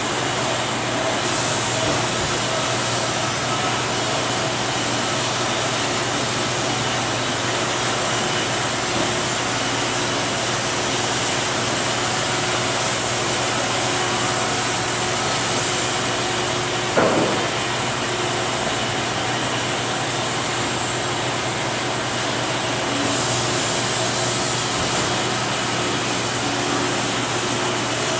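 Steady hum and hiss of sawmill-shop machinery running, with one sharp knock about seventeen seconds in.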